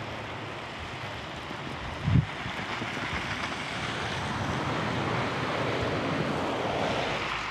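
Blizzard wind blowing, a steady rushing noise that swells slightly toward the end, with a brief low thump about two seconds in.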